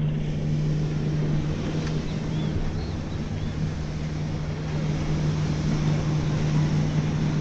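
A steady low engine drone, one constant hum running evenly throughout over a bed of outdoor noise.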